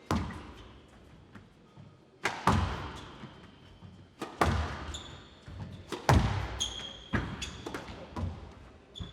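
Squash rally: the ball is struck hard by rackets and smacks off the court walls, sharp cracks about every second or two that echo in the hall, with players' shoes squeaking on the court floor.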